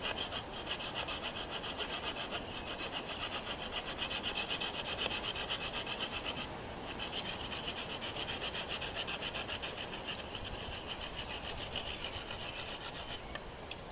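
Hand saw cutting through a wooden pole with quick, steady back-and-forth strokes, about four a second. It pauses briefly about six and a half seconds in and stops near the end as the piece is cut off.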